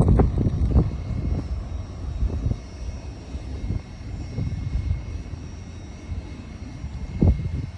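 Great Western Railway Class 800 train at the station: a low, steady rumble with a faint high whine over it, loud at the very start and dying down within the first second.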